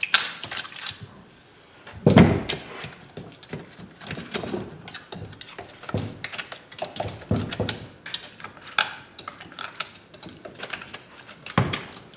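Knife scraping and cutting boiled flesh off a longhorn bull skull, with irregular knocks and scrapes and two heavier thumps, about two seconds in and near the end.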